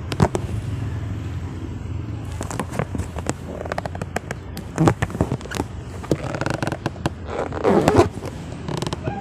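Inflated latex balloons being squeezed and rubbed against hands and clothing: a scatter of sharp rubbery squeaks and crackles as they are pressed hard to try to make them burst. A short vocal sound about three quarters of the way through.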